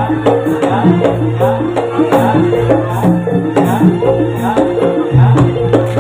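Javanese gamelan accompaniment for a kuda lumping dance: struck metal instruments play a quick repeating melody over steady drum and percussion strokes, with a sustained low tone beneath.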